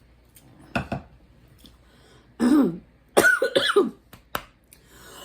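A woman coughing and clearing her throat, choking on a drink that went down the wrong way: one short cough about a second in, then a louder run of harsh coughs from about two and a half to four seconds in.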